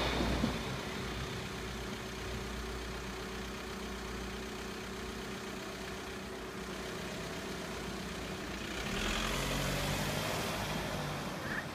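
A car engine idling close by, then pulling away about nine seconds in. The noise of a passing train dies away in the first half second.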